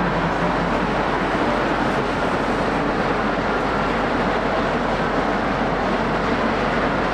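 Cat 6060FS hydraulic mining shovel and Cat 793D haul truck at work loading: a steady, dense din of heavy diesel machinery and hydraulics, holding an even level with no distinct knocks or impacts.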